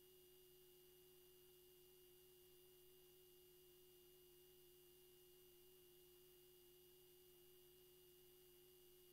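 Near silence: room tone with one faint, steady tone.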